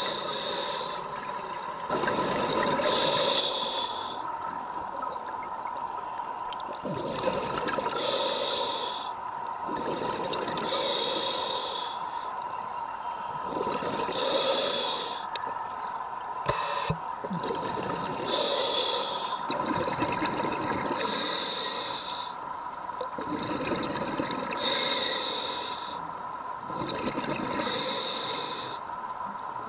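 Scuba diver breathing through a regulator underwater: a short hiss of each inhalation, then the bubbling of exhaled air, in a cycle of about one breath every three seconds. A steady high tone runs underneath.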